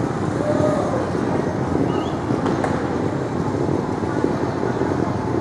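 City street ambience heard while walking: a steady low rumble with faint snatches of distant voices.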